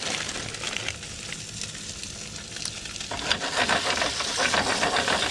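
Tailor fillets frying in butter in a pan, a steady sizzle that gets louder about three seconds in.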